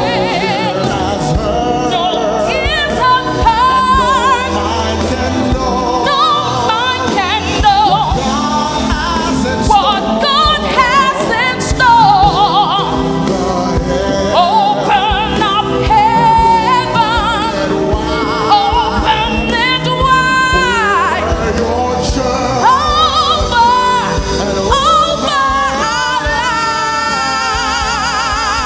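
Gospel worship music: singing with wavering vibrato and sliding runs over a steady instrumental accompaniment.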